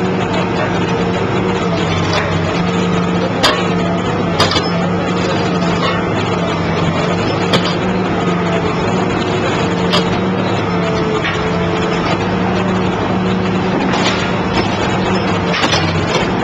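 Excavator's diesel engine and hydraulics running steadily, powering a hydraulic pile cutter clamped around a concrete pile, with a handful of short sharp cracks spread through.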